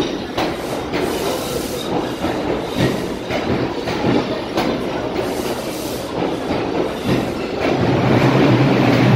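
New York City Subway R142 train pulling out and running past, its wheels knocking over rail joints about once or twice a second. From about three quarters of the way in, a steady low hum comes up and grows louder.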